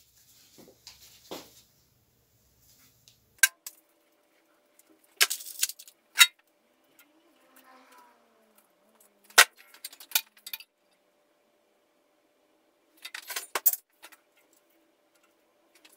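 Small metal clinks and clicks of tools, screws and switch parts being handled while the drill press's reversing switch is swapped, coming as separate clatters a few seconds apart with quiet between, over a faint steady hum.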